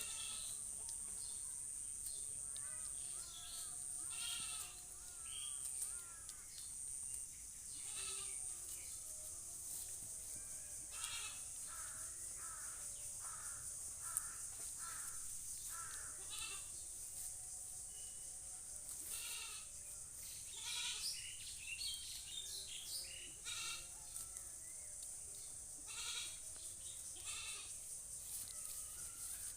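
A goat bleating again and again in short calls, with a steady high buzz behind it.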